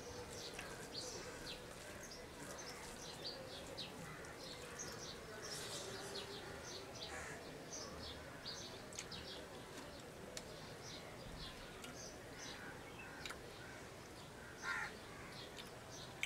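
Small birds chirping on and off in the background, with a crow cawing once near the end, the loudest sound.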